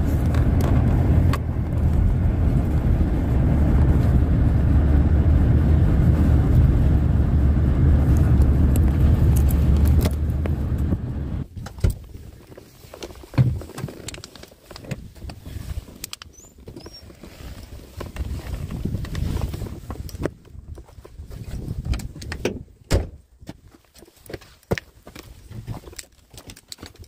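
Car engine and road noise heard from inside the cabin, a steady low rumble that stops about ten seconds in as the car comes to rest and is switched off. Scattered clicks and knocks follow.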